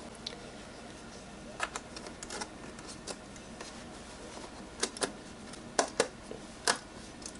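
Irregular light clicks and taps as the memory-compartment cover of a 27-inch iMac 5K is fitted back into place over the RAM slots, with a couple of sharper double clicks past the middle.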